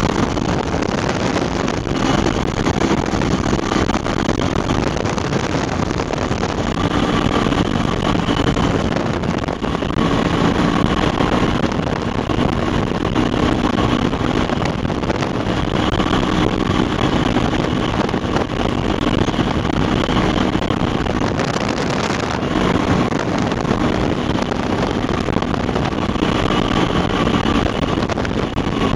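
Flex-wing microlight trike's engine running in flight with steady wind rush past the open cockpit, descending on approach to land. The engine note strengthens and eases off several times.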